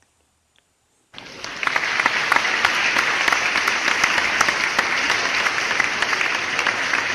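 Audience applause that starts suddenly about a second in and keeps going, thick and steady, after a brief near silence.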